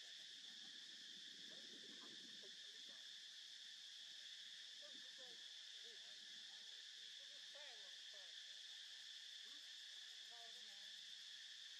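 Faint, steady insect drone: an even, shrill chorus of insects that does not change.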